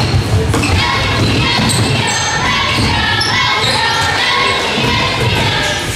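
Live basketball game sound: a basketball being dribbled on a hardwood gym floor with repeated low bounces, among short high squeaks and a mix of voices in the echoing gym.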